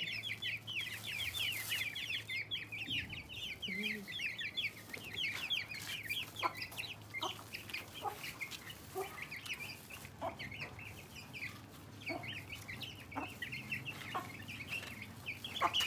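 Chicks peeping continuously in rapid short high chirps, with an adult chicken's short low clucks now and then.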